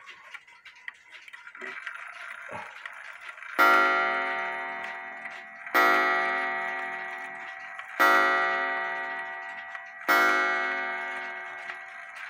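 1901 Ansonia shelf clock ticking, then striking the hour on its coiled wire gong: four slow strokes about two seconds apart, each ringing out and fading, with a fifth stroke right at the end.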